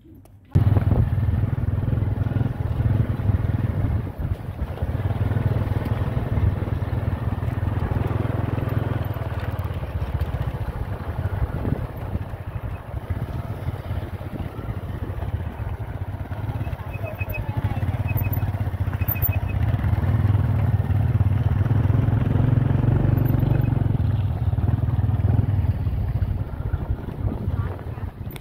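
Motorbike running as it rides along a rough dirt track, engine noise mixed with wind rumbling on the microphone.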